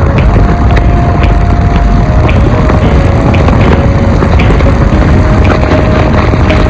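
A vehicle running: a loud, steady rumble with a thin whine that steps up and down in pitch a few times.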